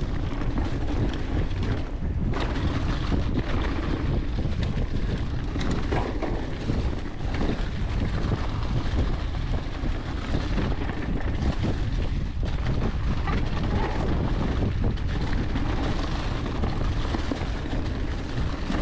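Mountain bike rolling fast down a trail deep in dry fallen leaves: the tyres rush through the leaf litter with a few small knocks. Wind blows over the handlebar-mounted GoPro's microphone.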